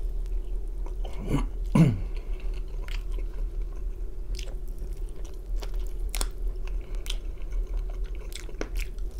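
Close-up chewing and biting of a teriyaki-glazed, well-fried chicken drumstick: wet mouth clicks and small crunches. A brief falling hum from the eater comes just under two seconds in.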